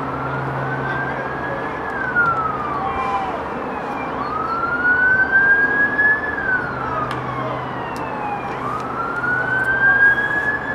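A siren wailing, slowly rising, holding high, then falling away, three times over.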